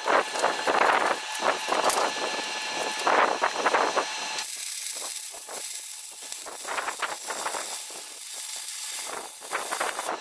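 Wire-feed welder arc crackling and sizzling steadily as a bead is laid on a steel rear axle housing, starting about four seconds in.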